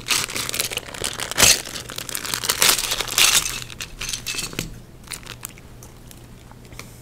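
Clear plastic parts bag crinkling and tearing as it is opened, with a louder crackle about a second and a half in. The crinkling dies down after about five seconds.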